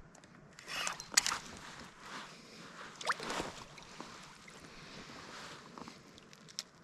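Kayak and paddle in shallow water: two splashing, sloshing strokes, a sharp knock about a second in, and a short rising squeak about three seconds in, then quieter water.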